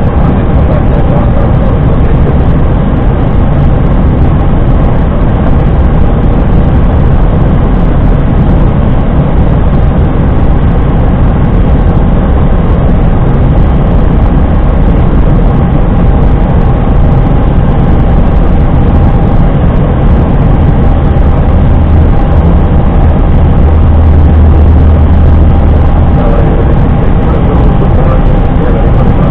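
Steady flight-deck noise of an Airbus A320 on final approach: a loud rush of airflow with a low engine rumble beneath it and a faint steady hum. The low rumble swells a little for a few seconds past the twenty-second mark.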